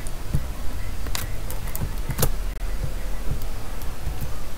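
A handful of scattered sharp clicks from a computer keyboard and mouse, the loudest about one and two seconds in, over a steady low hum.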